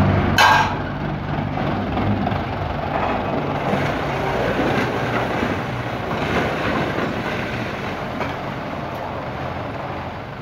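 Kubota M95 tractor's diesel engine running under load as it drags a disc plough through dry soil, gradually growing fainter as the tractor moves off.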